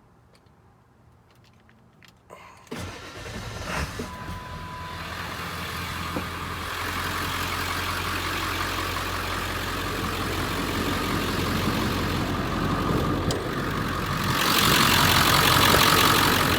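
A 2000 Ford F-250's 7.3 Powerstroke turbodiesel V8 is cranked and starts about two and a half seconds in, then settles into a steady idle. It gets louder and hissier near the end.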